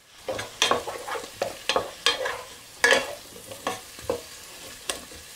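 Wooden spoon stirring diced potatoes and onions in a non-stick saucepan, in about two short scrapes a second, over a light sizzle of the vegetables frying in butter and oil.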